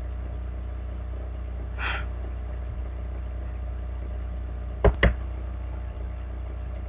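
Steady low electrical hum from the recording setup, with two sharp clicks a fraction of a second apart about five seconds in, typical of a computer mouse button being clicked.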